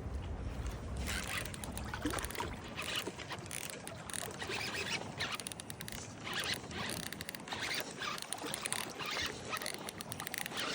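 Fishing reel being cranked through a jerkbait retrieve: rapid mechanical ticking in irregular spurts with short pauses between them.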